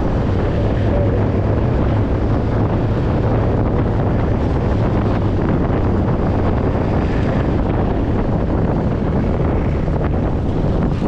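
Wind rushing and buffeting over the microphone of a handlebar-mounted action camera on a moving motorcycle, steady throughout, with the motorcycle's engine running at a steady cruise underneath.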